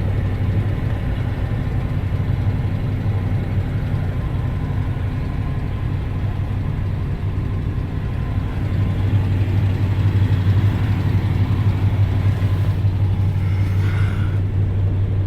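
1987 Jeep Grand Wagoneer's V8 idling steadily, a little louder about two-thirds of the way through. With it runs the heater blower, fitted with a new fan motor and squirrel cage; it is quiet, with no chirp.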